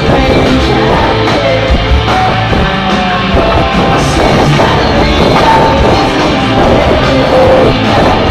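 Live rock band playing loudly, with electric guitar over a steady drum beat, heard from within the audience of a concert hall.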